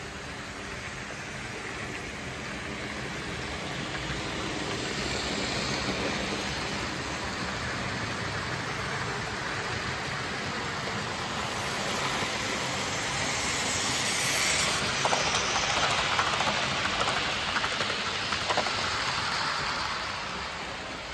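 OO gauge model trains running on the layout's track: a steady whirring rumble of motors and wheels on rail, growing louder about halfway through as a train comes close, with small rapid clicks over the rail joints, then fading near the end.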